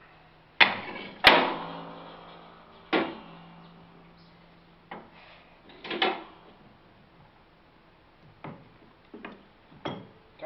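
Sharp metal clanks and knocks, several seconds apart, as a PTO driveshaft is worked back onto a John Deere 507 rotary mower. The loudest, about a second in, leaves a metallic ring that fades over a few seconds.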